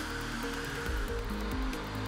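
Background music: held notes changing over a low bass line. Beneath it is a steady whirring hiss of machinery.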